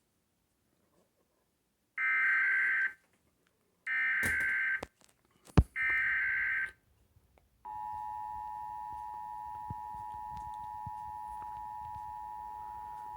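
Emergency Alert System tones: three short buzzy data bursts of the digital SAME header, each about a second long with about a second between them, then the steady two-tone EAS attention signal (853 and 960 Hz together) starts a little past halfway and holds. A single sharp click sounds between the second and third bursts.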